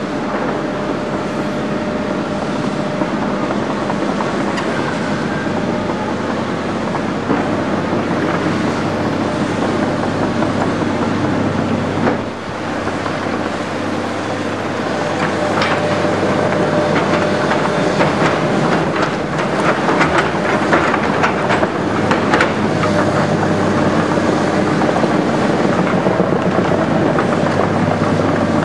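Tracked hydraulic excavators working in rock spoil: diesel engines running steadily with a whine, and in the second half a run of clanks and scrapes from steel buckets and tracks on the rubble.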